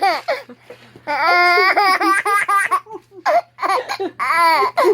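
A baby laughing out loud in high-pitched giggles: a long, wavering squeal of laughter about a second in, followed by shorter bursts.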